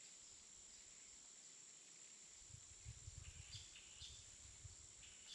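Near silence: a faint, steady high-pitched tone, with a few soft low thumps in the middle.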